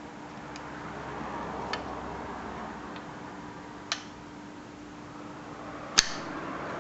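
Small clicks and rustling of a hand tool working the retaining clip of a truck door handle's key lock cylinder, with a few faint ticks about a second apart, a firmer click near four seconds in and a sharp snap about six seconds in as the clip comes off.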